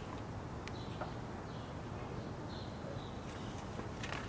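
Faint steady outdoor background with a few short, faint bird chirps scattered through it.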